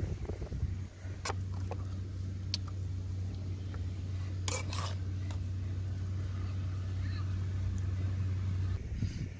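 A steady low hum with a few scattered light clicks and taps, a cluster of them about four and a half seconds in, from a metal ladle and spoon against the pan and an enamel plate while food is served.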